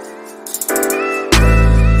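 Outro music with bass and drums. The bass and beat drop out briefly, then come back in with a hit just over a second in.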